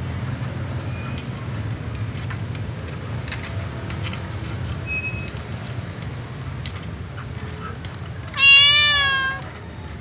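A calico cat meows once near the end, a single loud call about a second long with a slightly wavering pitch, over a steady low background rumble.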